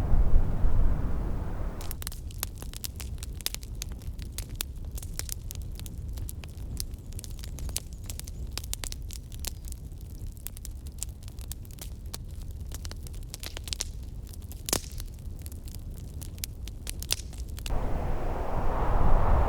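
Wind rumbling on the microphone during a snowstorm. From about two seconds in until near the end, the wind noise drops sharply and a dense run of irregular, sharp crackling ticks takes over, then the wind swells back.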